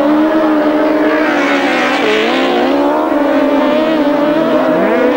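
Two grasstrack sidecar outfits racing hard together through a bend, their engines running at high revs with the engine notes wavering up and down as the riders work the throttle.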